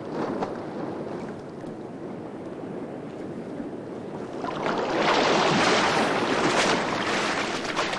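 Sea water washing and rushing, with a louder surge about halfway through that lasts about three seconds.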